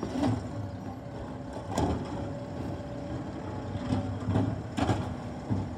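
A steady low machine hum with a faint constant tone, with a few short knocks.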